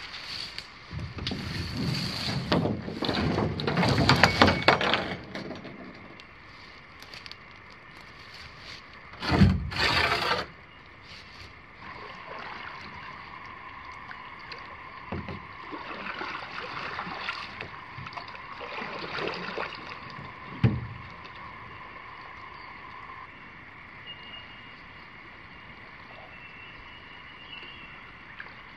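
Rustling and scuffing through grass and scrub as an inflatable canoe is handled, a louder burst of handling noise, then a canoe being paddled on calm water, with a soft paddle stroke every couple of seconds.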